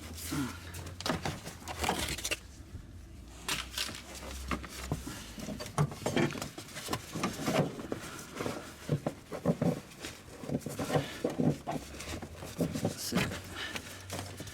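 Irregular clicks, knocks and rattles of parts being handled and worked into place around a car battery.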